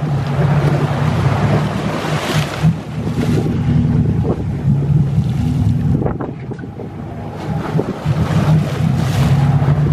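Boat engine running with a steady low hum under water rushing and splashing along the hull, with wind buffeting the microphone. The splashing swells twice, about two seconds in and again near the end.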